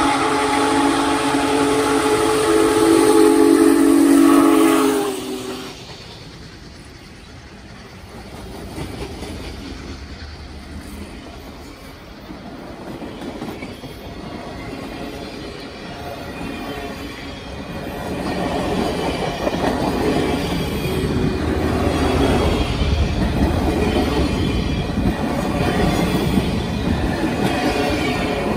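Union Pacific Big Boy No. 4014, a 4-8-8-4 articulated steam locomotive, blows its steam whistle, a loud chord of several notes held for about five seconds that then cuts off. After that its passenger cars roll past, the wheels rumbling on the rails, growing louder over the last ten seconds.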